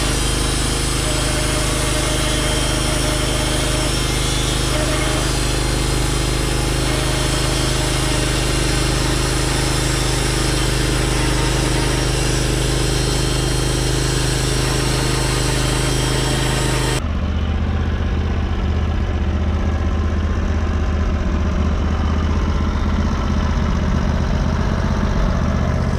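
Portable bandsaw sawmill's 23-horsepower motor running while the blade cuts a cedar log, a loud steady engine drone under a dense hiss of sawing. About two-thirds of the way through, the hiss stops abruptly and the motor carries on running as a lower, steadier hum.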